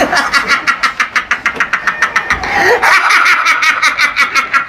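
A man laughing hard and without a break: a fast, high-pitched cackle of many short laughs a second.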